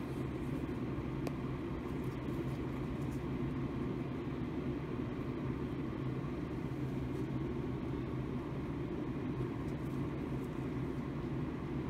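Homemade laminar flow hood's blower fan running: a steady, even low hum, with a few faint clicks of hands handling tape and a petri dish.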